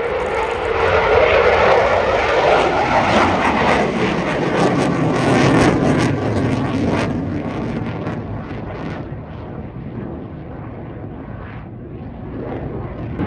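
Military fast jet passing overhead: a loud roar whose pitch slides down as it goes by, fading after about seven seconds.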